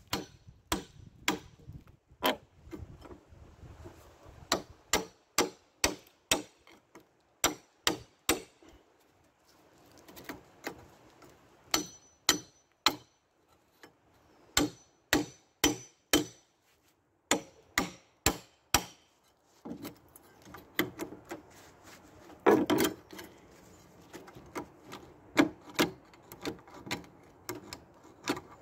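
Claw hammer striking the head of a rusty steel pry bar in quick runs of blows, driving it under a metal bracket on a weathered cedar fence board; a few blows ring briefly. In the last third the blows give way to denser scraping and knocking of metal against wood as the bar works at the bracket.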